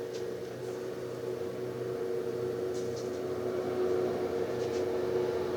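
A steady electrical hum from a running appliance in the room, with two held tones, and a few faint light clicks.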